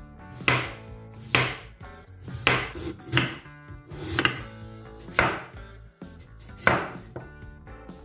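Chef's knife slicing through raw potatoes and striking a wooden cutting board, about seven separate chops roughly a second apart.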